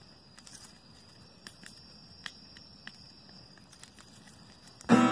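Wood fire crackling faintly, with scattered sharp pops over a steady high-pitched tone. Near the end, acoustic guitar music comes in loudly.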